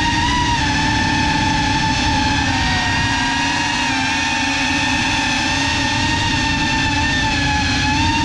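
GEPRC CineLog35 FPV cinewhoop's motors and propellers whining steadily, heard from the onboard camera. The whine's pitch wavers slightly up and down throughout.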